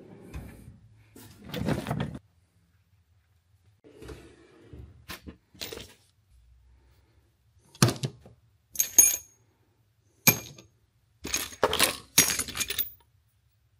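Steel sockets and hand tools clinking and clattering as they are picked through in a U.S. General tool chest drawer, with quieter rummaging at first and then scattered sharp metallic clanks, several ringing briefly, in the second half.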